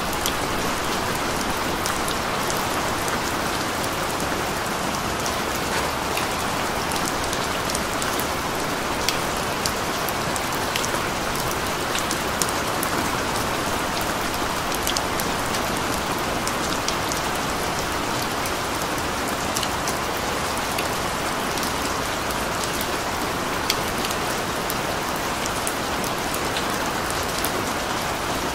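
Steady rain falling on a surface, an even wash of noise with many small distinct drop ticks scattered through it.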